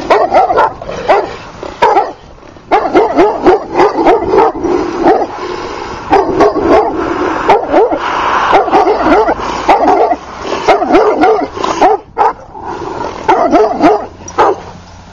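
Dogs guarding a yard barking: a long run of rapid, loud barks, breaking off briefly about two seconds in and again around twelve seconds.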